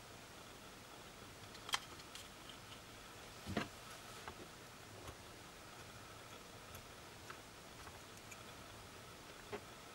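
Faint, sparse clicks and scrapes of a small pointed tool working at a Canon LP-E6 battery pack's plastic cell holder and the cells in it; the loudest click comes about three and a half seconds in. A faint steady whine runs underneath.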